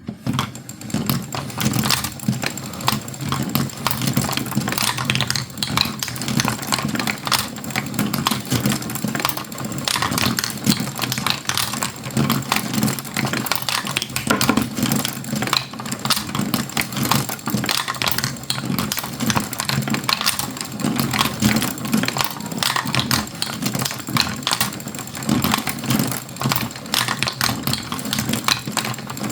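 Marbles rolling down a marble run, a steady rolling rumble under a dense, continuous clatter of small clicks.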